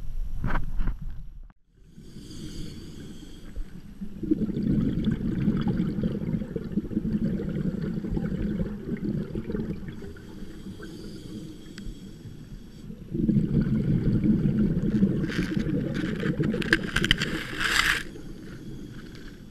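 Muffled underwater rumble and gurgling recorded through a GoPro's waterproof housing, in two long stretches, with crackling near the end.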